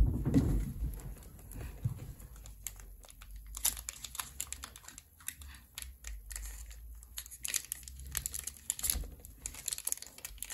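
Foil wrapper of a Pokémon booster pack crinkling and crackling in the hands, with irregular crackles as it is worked at and torn at the top; the pack is stubborn and slow to open.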